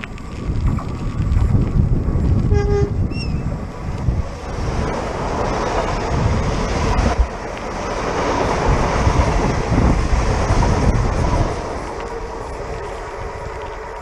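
Renfe commuter electric train sounding a short horn toot, then rushing past at close range. Strong wind buffets the microphone throughout.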